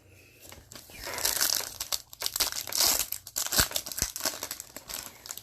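A foil trading-card pack wrapper being torn open and crinkled, a dense run of fast crackling that starts about half a second in and dies away near the end.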